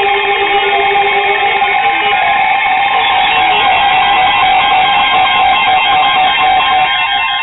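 Weather alert radio alarm tones: several steady electronic tones sounding at once, with beeping tones over them, alerting to an incoming flood warning. The lowest tone stops about a second and a half in.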